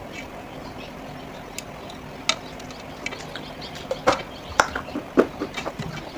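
Irregular sharp taps and clinks on clay pottery, sparse at first and coming faster and louder in the last two seconds, over a faint steady hum.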